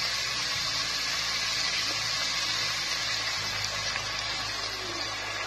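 Steady sizzling hiss of chow chow, onions and tomato cooking in a hot pressure cooker. In the second half, cooked toor dal water is poured in over the vegetables.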